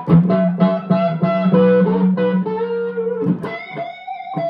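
1961 Gibson SG Special electric guitar with P-90 pickups, played through an amplifier. A low note is held ringing under a run of higher notes, then a single note bends upward near the end.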